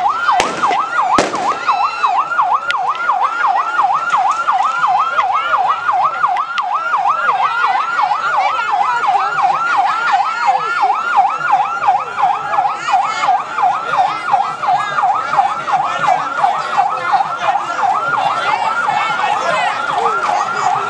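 Police vehicle siren on the yelp setting: a loud, quick, repeated rising-and-falling wail that keeps going without a break.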